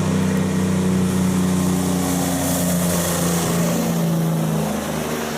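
Large truck's engine running steadily at an even pitch, starting and cutting off abruptly.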